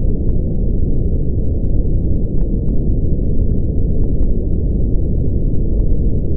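Brown noise: a steady, unchanging deep rumbling hiss, heaviest in the bass with nothing above about 1 kHz.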